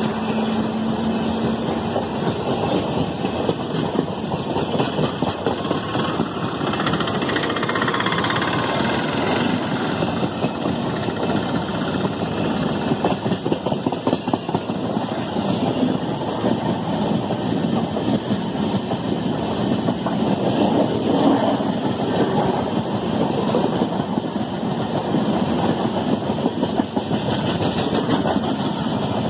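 Electric-hauled Indian Railways passenger train passing at speed: a continuous rolling noise of steel wheels on the rails with rapid clicking over the rail joints as the coaches go by. A steady hum from the WAP-7 locomotives fades in the first couple of seconds.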